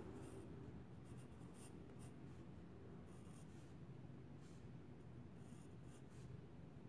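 Pencil scratching faintly on drawing paper in short, irregular strokes as lines are sketched.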